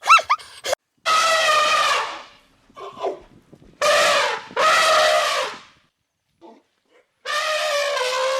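An animal calling: a few quick short calls right at the start, then a series of long, drawn-out calls of about a second each, the last one longer.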